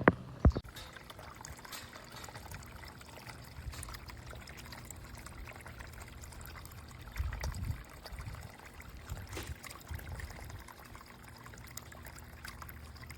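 Water from a small solar-powered fountain pump spraying and trickling back into its basin. Two sharp knocks come right at the start, and there is a brief low rumble about seven seconds in.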